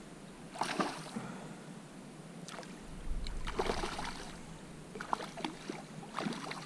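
A hooked carp thrashing at the surface on a tight line, several bursts of splashing water, the longest about three to four seconds in.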